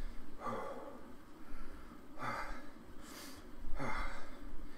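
A man breathing hard from exertion while pedalling an exercise bike: about four heavy, airy breaths in and out.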